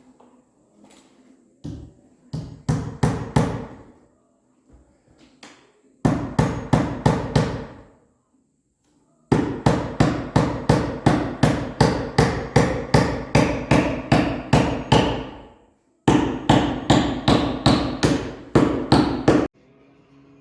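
Hammer blows on a wooden boat's hull planking, struck at a steady pace of about three a second, each with a short ring. They come in several runs that cut off abruptly.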